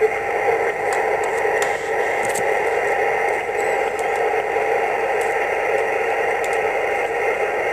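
Amateur HF transceiver tuned to 14.205 MHz on the 20-metre band, receiving only band noise while no station is transmitting: a steady hiss of static held within the narrow voice passband, with a few faint crackles.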